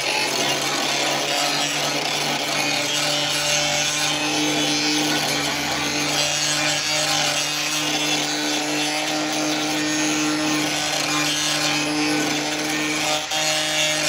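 Handheld electric angle grinder running at steady speed, its disc grinding the steel sill of a car body: a constant motor whine under a harsh rasping of metal, held steady throughout.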